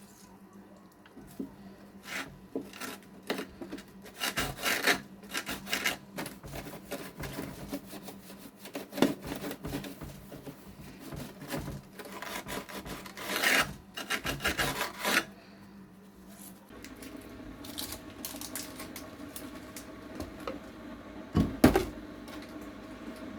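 Clicks, knocks and rubbing as a Keurig coffee maker is handled. About seventeen seconds in a steady low hum starts, and a heavy thump comes near the end.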